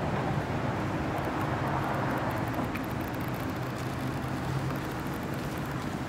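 Steady gas-station forecourt ambience: a low, even engine-like hum with a wash of traffic noise.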